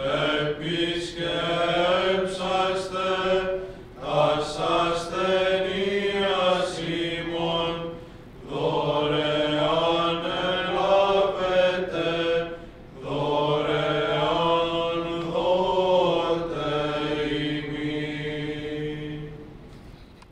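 Greek Orthodox Byzantine chant: sung voice in four long, ornamented phrases with short breaks between them, fading out near the end.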